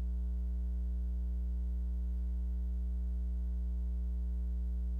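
Steady low electrical mains hum, a buzzy drone with a ladder of overtones, and no other sound.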